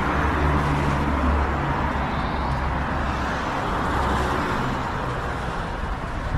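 Steady road traffic noise, vehicle engines running with a low hum under a constant wash of tyre and street noise.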